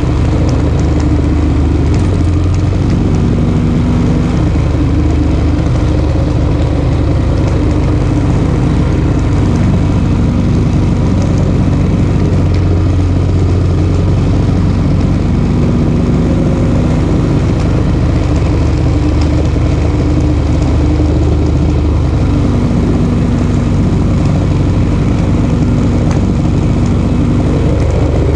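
Junior dragster's single-cylinder engine idling steadily, heard from on board the car, its pitch wavering a little up and down.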